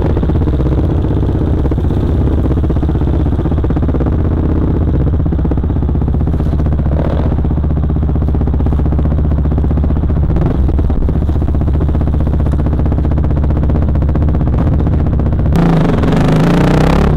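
KTM dirt bike engine running as the bike is ridden over rough trail, with clatter and a few knocks from the bike. About fifteen seconds in it gets louder and harsher.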